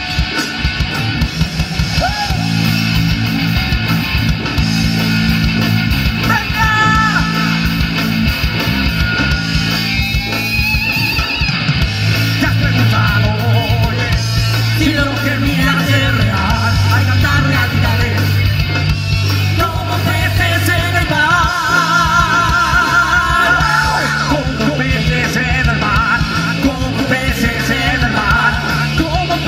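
Live heavy metal band playing: electric guitar, bass and drum kit, with sung and yelled vocals over the top.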